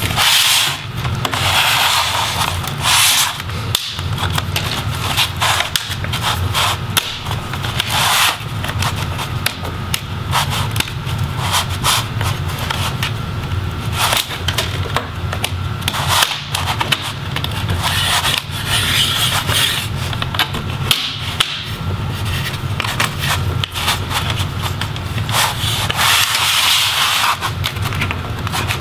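Plastic front display bezel of an Acer Predator Helios 300 laptop being pried off by hand: plastic scraping and rubbing along the seam, with scattered little snapping sounds as the retaining clips release.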